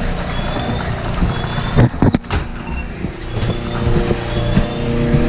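A steady engine drone, with a cluster of sharp knocks about two seconds in and faint short high chirps every second or so.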